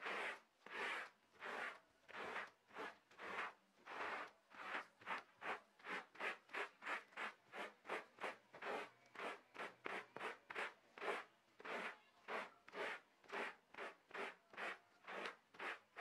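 Rubber floor squeegee dragged in short strokes over a carpet, a faint scraping rub with each stroke as it pulls lint and fluff out of the pile. About two strokes a second, quickening a little after the first few seconds.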